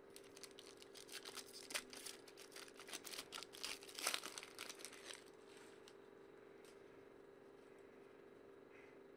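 Foil wrapper of a Panini hockey card pack being torn open and crinkled, a rapid crackling for about five seconds that is loudest near the end of the tearing, then stops.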